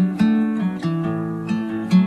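Background music: an acoustic guitar playing chords.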